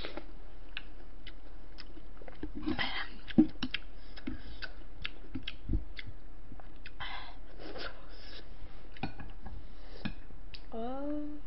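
Close-miked eating sounds: chewing and slurping spoonfuls of soup, with short clicks of a metal spoon and chopsticks against the bowls.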